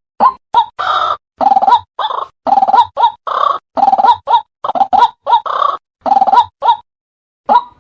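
White-breasted waterhen calling: a quick run of short notes about two a second, then longer croaking calls alternating with short notes, and one last note after a brief gap near the end.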